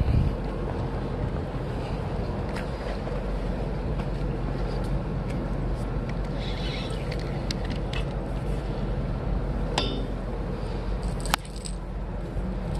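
Steady low rumble of wind on the phone's microphone, with scattered sharp clicks from handling the fishing rod and reel. A louder click comes near the end, after which the rumble drops.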